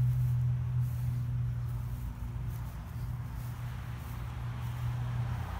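Steady low hum of an idling car engine, with light outdoor background noise.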